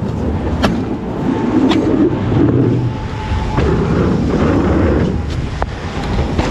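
Wind rumbling on the camera microphone, with a few sharp clicks or knocks.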